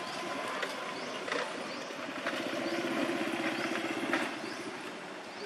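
A motor engine running steadily, with a repeated short, high rising chirp about twice a second.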